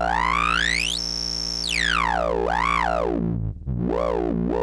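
Breadboarded 4-pole transistor lowpass filter self-oscillating at high resonance over a low square-wave note, making shrill droid sounds. The resonant whistle sweeps up to a very high shriek, holds for about half a second, and sweeps back down. Then it rises and falls in three shorter arcs as the cutoff is turned.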